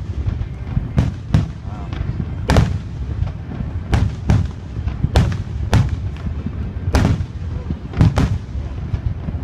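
Aerial firework shells bursting in a rapid barrage: about a dozen sharp bangs, roughly one or two a second and some in quick pairs, each trailing off in an echo, over a steady low rumble.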